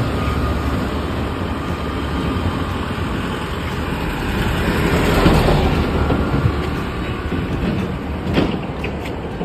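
Road traffic passing: a steady rumble and rush of a motor vehicle that swells about five seconds in and then eases off.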